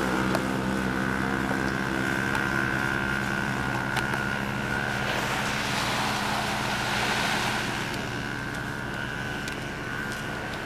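Steady engine and road noise of a moving vehicle: an even hum with a constant higher tone, easing off slightly near the end.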